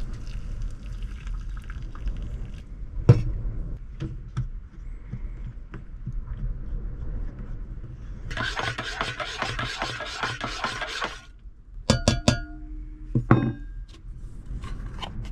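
Strong wind buffeting the truck camper as a low, steady rumble, with cookware clinking and scraping. A rushing hiss lasts about three seconds in the middle, and a few ringing clinks follow near the end.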